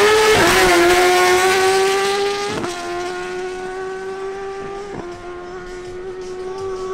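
Suzuki GSX-R1000 inline-four superbike engines at full throttle on a drag run, holding a high, slightly rising note. The note cuts briefly at two upshifts, about two and a half and five seconds in, and grows fainter as the bikes pull away down the strip.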